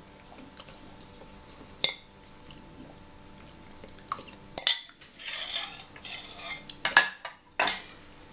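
A spoon on a ceramic plate: one sharp clink about two seconds in, then a busier run of clatter in the second half, ending with a few knocks of china on china as the plate is set down on another plate.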